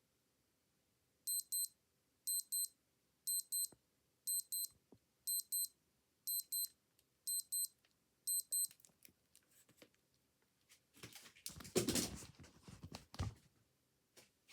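Old digital watch alarm beeping: eight high-pitched double beeps, one pair a second, then it stops. A few seconds later comes a louder burst of rustling and knocking handling noise.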